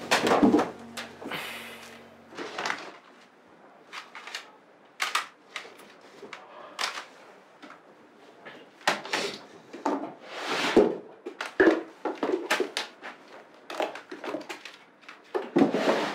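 Background music stops about two and a half seconds in. Then comes someone rummaging at a desk: scattered knocks, clacks and rustles of small objects being picked up and put down, and a drawer being handled.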